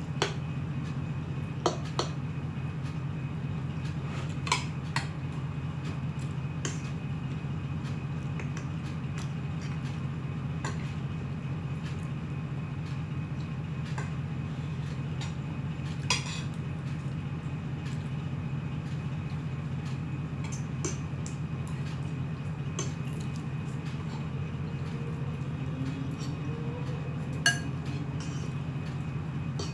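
Metal spoons and forks clinking and scraping against ceramic plates and bowls as people eat: scattered sharp clinks, the loudest near the end, over a steady low hum.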